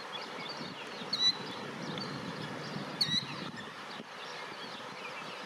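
Killdeer calling: a shrill, high call sounds twice, about two seconds apart. Fainter chirps of other small birds run underneath.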